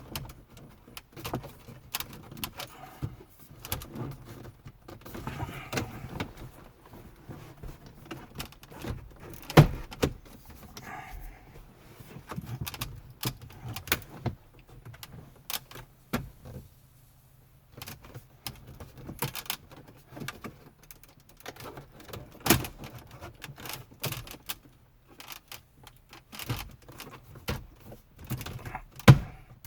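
Plastic dash trim and a radio unit being handled and worked into place in a pickup's dash: scattered clicks, rattles and knocks, a few of them sharper, over a faint steady low hum.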